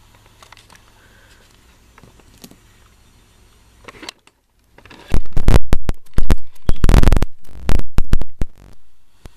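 A handheld camera's microphone being handled, rubbed and knocked: a few faint ticks at first, then from about five seconds in a run of loud rumbling thumps and scrapes on the microphone.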